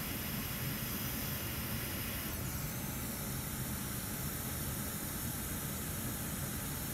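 Steady hiss of air-like background noise with no distinct events; about two seconds in its highest part drops away, leaving a faint thin high whine.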